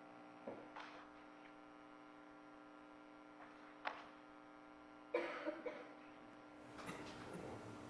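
Quiet room tone under a steady electrical hum, with a few soft clicks and a short noise about five seconds in.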